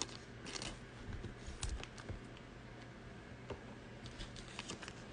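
Faint, scattered small clicks and rustles of trading cards and their packaging being handled.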